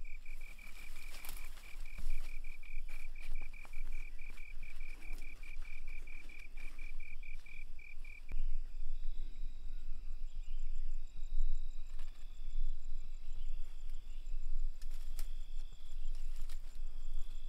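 Insects calling in the bush: a fast, even chirping trill that stops about eight seconds in, after which shorter, higher trills and a faint rapid ticking carry on. A few light knocks and a low steady rumble sit underneath.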